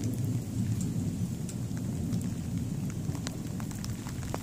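Thunderstorm: thunder giving a continuous low rumble, with rain and scattered drops ticking close by.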